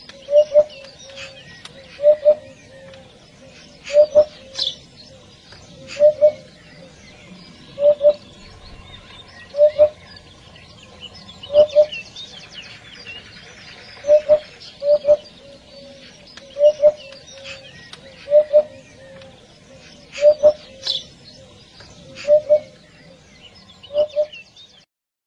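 Eurasian hoopoe calling: soft, low two-note hoots, repeated about every two seconds. Fainter, higher chirps of small birds sound behind them.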